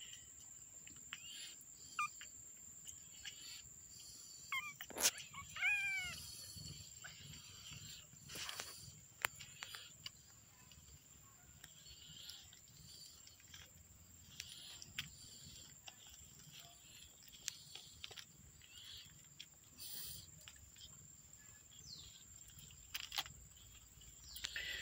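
A young kitten mewing a few times, short high arching cries about four to six seconds in, among soft clicks and rustles of handling. A faint steady insect trill runs underneath.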